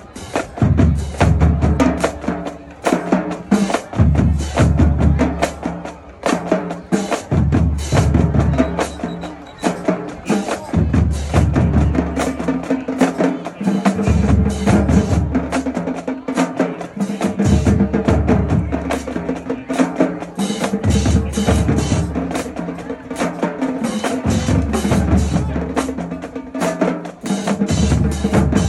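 Marching drumline playing with rapid snare and tenor drum strokes throughout, while the bass drums come in with heavy passages every few seconds.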